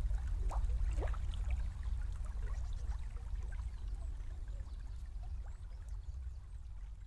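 Small river flowing and gurgling, with many small bubbling plips over a steady low rumble. The sound fades out gradually.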